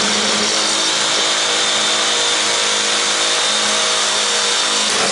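Reciprocating saw (Sawzall) running at full speed and cutting through the chipper shredder's housing, a loud steady buzz that cuts off suddenly at the end as the cut on one side is finished.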